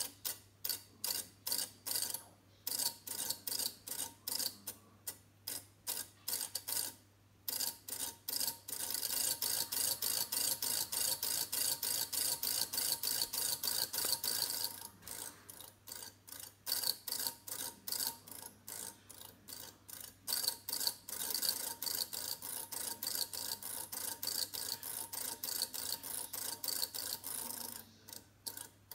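Electromechanical flip-segment seven-segment display from an old petrol pump, its segments clicking as they flip through animated patterns. The clicks come a few a second, with several seconds of rapid, almost continuous clattering past the middle, then spaced clicks again.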